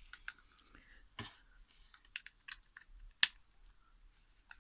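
Faint plastic clicks and light rubbing from a pair of plastic over-ear headphones being handled, the swivelling ear cups turned in the hands, with one sharper click a little past three seconds in.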